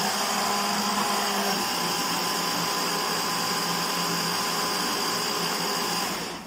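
Electric hand blender running on its chopper bowl attachment, mincing a wet marinade paste: a steady motor whine that cuts off just before the end.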